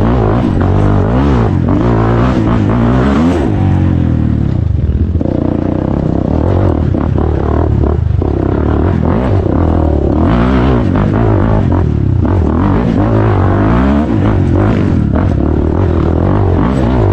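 Off-road motorbike engine revving up and down again and again as it is ridden over rough ground, with a few short knocks.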